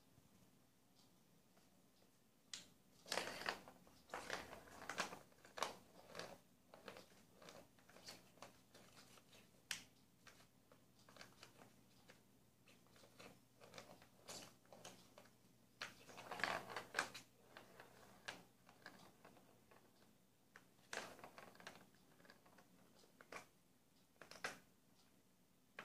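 A cat batting a ball around inside the plastic tube of a Catit Senses Super Roller Circuit track: irregular clicks and rattles of the ball and paws knocking on the plastic. They start a couple of seconds in and come in scattered clusters, busiest near the start and again around the middle.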